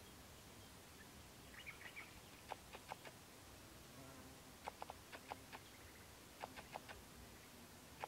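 Near silence with faint sharp clicks, singly and in short quick clusters from about two and a half seconds in, and a brief faint high chirping just before two seconds in.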